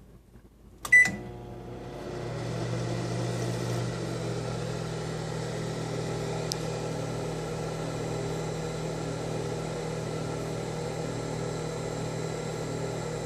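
Microwave oven started with a short keypad beep about a second in, then running with a steady hum through its timed cycle.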